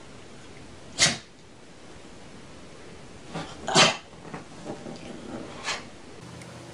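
Pug making a few short snorting sounds as it rolls on its back on a sofa. The loudest come about a second in and about four seconds in.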